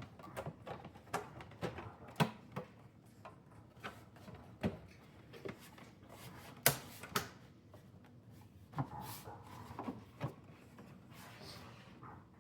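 Irregular clicks and knocks as the casing and front panel of a DeLonghi Magnifica coffee machine are handled and fitted back together. The loudest knocks come about two seconds in and just before seven seconds in.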